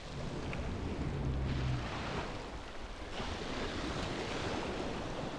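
Sea water washing and splashing with wind buffeting the microphone, and a short low hum just after a second in.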